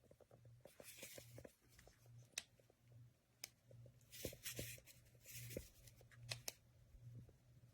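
Near silence with faint scattered clicks and brief rustles, like light handling.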